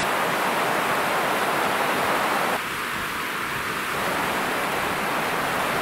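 Steady rush of fast water pouring through a reservoir overflow, an even hiss with no distinct events. It dips slightly about two and a half seconds in.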